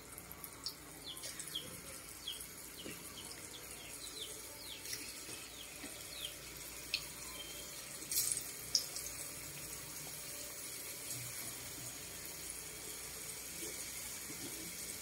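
Pilipit dough strips deep-frying in hot oil: a steady sizzling hiss, with a couple of sharp clicks about eight seconds in as more pieces are laid into the pan.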